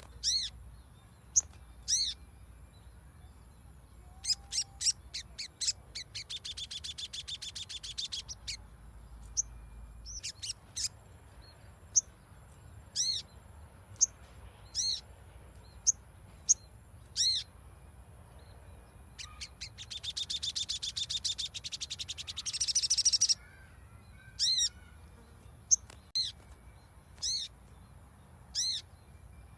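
Sogon (little spiderhunter) calling: sharp single chips roughly once a second, broken twice by a long, rapid chattering trill, the second trill the louder.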